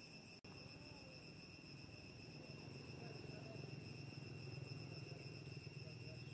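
Faint, steady insect drone of forest crickets, a constant high whine, dropping out for an instant about half a second in.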